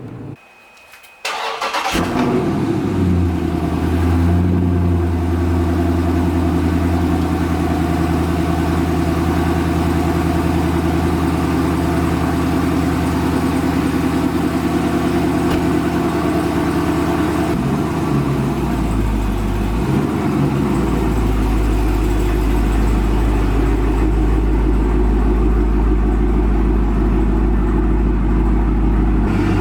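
A car engine starts about two seconds in and runs steadily at idle. About two-thirds of the way through its note drops to a deeper, steady idle.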